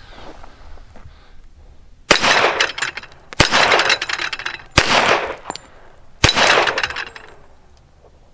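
Four pistol shots from a Hi-Point .45 ACP, spaced about a second and a half apart, each followed by a ringing tail as the steel plate targets are struck and swing over.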